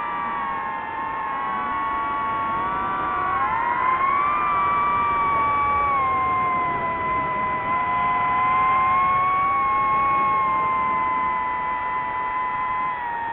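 DJI FPV quadcopter's motors and propellers whining, several close pitches that climb together about four seconds in, hold, and sag slightly near the end.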